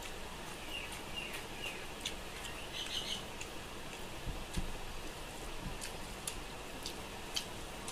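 Close-up eating sounds: wet chewing and lip smacking, with fingers squishing rice and fish curry against a steel plate, giving scattered small clicks and soft thumps. A few short, high chirps come in the first three seconds.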